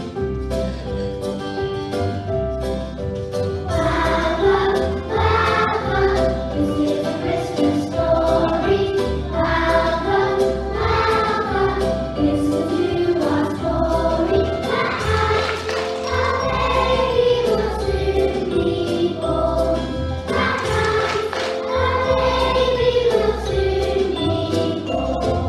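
Group of young children singing a nativity song along to a backing track with a steady beat; the singing comes in about four seconds in.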